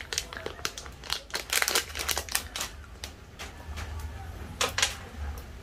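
Small clear plastic packet of weighted fishing hooks crinkling as it is handled and opened by hand: irregular rustles and light clicks.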